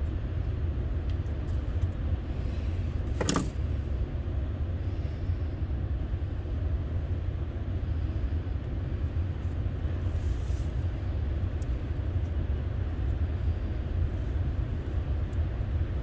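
Steady low rumble of strong wind buffeting the microphone, with a single sharp click about three seconds in.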